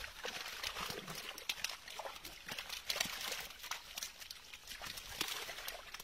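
A netful of live fish flapping in a cast net held in shallow water, making a dense, irregular run of wet slaps and small splashes, with water trickling and sloshing.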